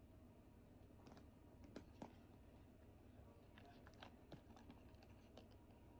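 Near silence with faint, scattered light clicks and taps from a small crossbody bag being handled, a couple about two seconds in and a cluster around four seconds.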